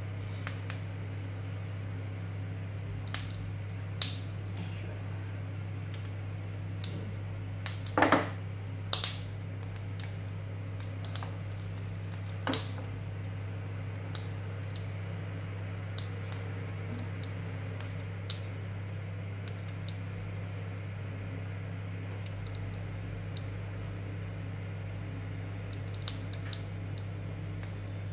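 A steady low hum with scattered light clicks and knocks of metal pots and pans being handled on a stove top, the loudest clatter about eight seconds in.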